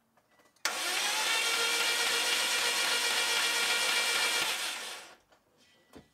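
Starter motor cranking a Subaru WRX's EJ20 flat-four boxer engine for about four seconds, starting abruptly and fading out. The compression gauge on cylinder 2 reads zero during it: the cylinder builds no compression.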